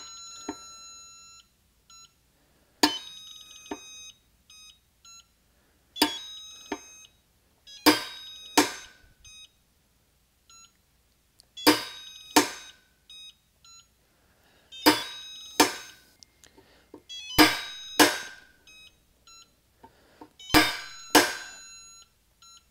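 EPAuto click-type torque wrench pulled on a torque tester, clicking again and again at its set torque, the clicks often in pairs under a second apart. Short electronic beeps from the tester come between the pulls. The wrench releases outside its accuracy spec at 30, 90 and 150 ft-lb.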